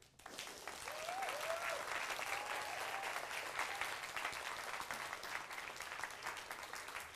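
Audience applauding in a lecture hall, a dense even clatter of many hands that starts suddenly and keeps going steadily.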